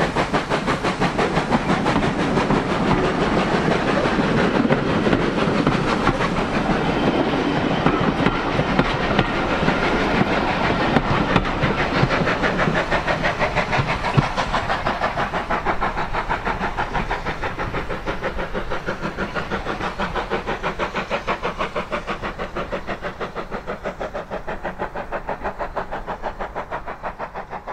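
A steam train hauled by a Great Western tank engine passes close, then pulls away: the coaches roll by and there is a rapid, regular rhythm of beats. The sound fades steadily as the train recedes into the distance.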